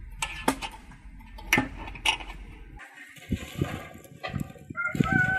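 Metal wire grill basket clinking and rattling in sharp knocks as it is clamped shut, then a run of dull low knocks, and a rooster starts crowing near the end.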